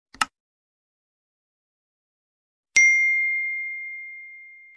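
Subscribe-button animation sound effects: a single mouse click, then a couple of seconds later a bright bell ding for the notification bell that rings on and fades away slowly.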